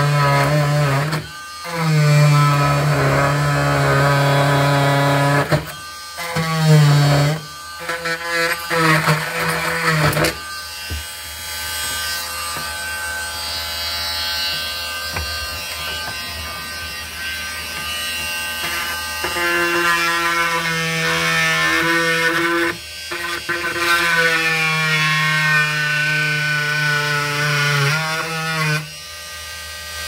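Dremel Multi-Max oscillating multi-tool buzzing as its blade cuts into the edge of a laminate countertop and its particleboard core. It runs in bursts, cutting out and starting again several times.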